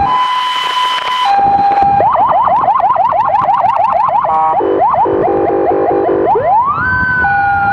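Electronic emergency siren switching through its tones. It starts with a two-tone hi-lo alternation and a held low tone, then a fast yelp of about four rising sweeps a second, then a run of short stepped pulses. It ends in a rising wail that holds high before dropping back to the low tone near the end.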